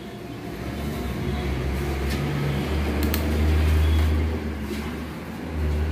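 Footsteps on a tiled floor, faint ticks about once a second, over a steady low rumble that swells and is loudest about midway.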